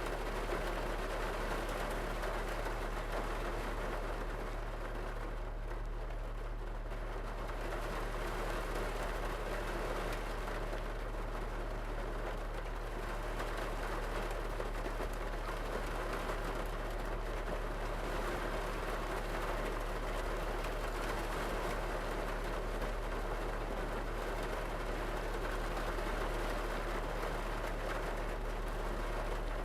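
Rain falling steadily on a parked car, heard from inside the cabin, with a steady low hum underneath.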